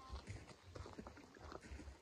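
Low, uneven wind rumble on the microphone, with faint scattered knocks and footsteps as split firewood kindling is handled.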